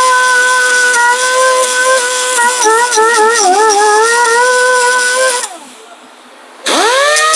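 A cut-off tool with a 3-inch abrasive wheel whining at high speed while grinding rust off a steel brake caliper bracket, its pitch wavering as the wheel is pressed against the metal. About five and a half seconds in the tool is let off and winds down, then about a second later it spins back up with a sharply rising whine.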